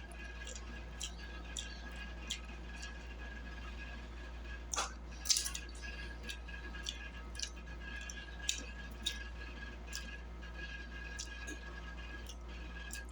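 Close-miked eating of fried catfish: scattered wet smacks, soft clicks and chewing sounds, the loudest cluster about five seconds in, over a steady low hum.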